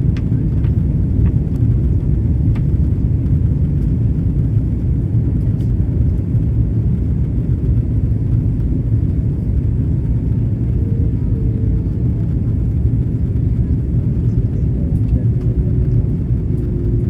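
Steady low rumble of cabin noise inside an Airbus A330 airliner in flight on approach: engine and airflow noise heard from a window seat.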